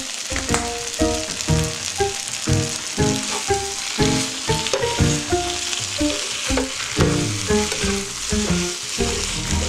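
Shrimp and bucatini sizzling in a frying pan of sauce as they are tossed and stirred with tongs, over background music with a steady beat.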